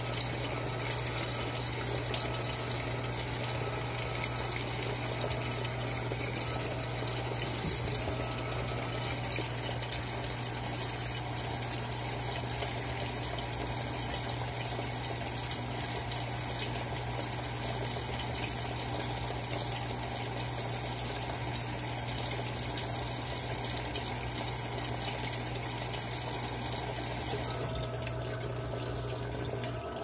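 Electrolux LAI17 top-load washing machine filling with water: a steady rush of water pouring into the drum over a low hum. The water cuts off shortly before the end, and the hum stops a moment later.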